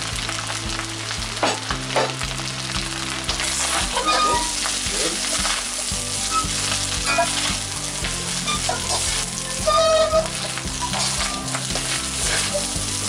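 Rice and shrimp stir-frying in a metal wok: a steady sizzle with a spatula repeatedly scraping and tossing against the pan. About ten seconds in there is a louder scrape with a short squeal.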